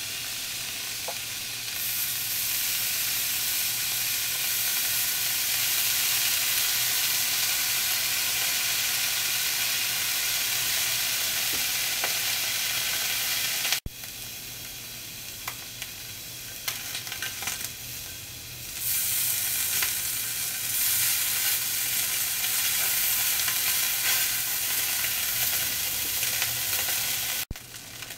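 Potato wedges and broccoli sizzling in a small cast-iron skillet. After a cut about halfway, slices of smoked bacon fry in the same pan, the sizzle quieter at first and then swelling louder a few seconds later.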